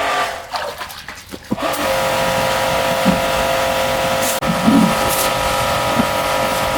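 A high-pressure washer starts about a second and a half in, after a few clicks, then runs steadily: a steady whine over the hiss of the spray.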